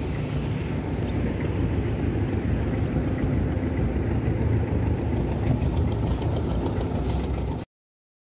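An engine running steadily, with a deep rumble, until it cuts off suddenly near the end.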